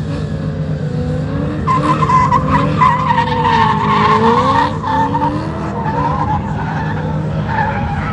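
Car doing a burnout: the engine runs at high revs while the spinning tyres squeal in a wavering pitch. The squeal is loudest in the middle.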